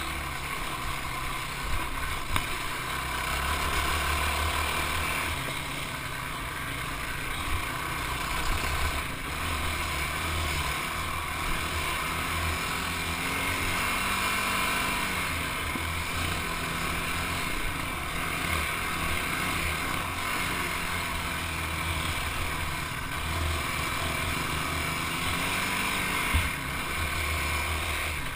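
ATV (quad) engine running steadily while the quad rides over a rough dirt trail, with a rumbling, uneven low end and a few sharp knocks, about two seconds in and again near the end.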